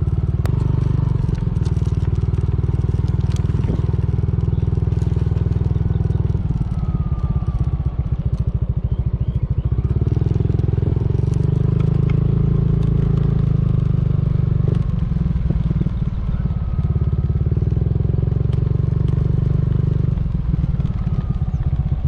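Motorcycle engine running while riding along, the engine note easing off and picking up again several times as the throttle changes.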